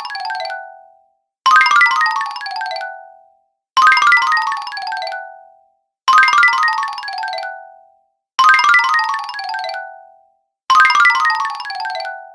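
Cartoon 'fail' sound effect: a quick run of pitched notes stepping down in pitch, ending on a lower held note that fades away. It repeats about every two and a quarter seconds, five times in full plus the fading end of the one before.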